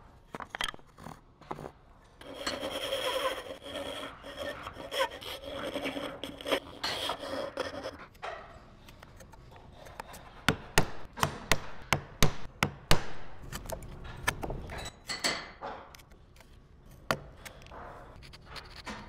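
Hand tools working pine: a stretch of hand sawing with a fine backsaw, then a run of sharp clicks and snaps as a chisel pushed by hand pares and breaks out the waste between saw kerfs.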